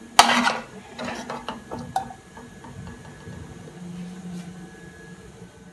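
Metal spatula knocking and scraping in a steel wok while scooping out stir-fried food: one sharp clank with a short ring just after the start, then several lighter clinks and scrapes over the next two seconds.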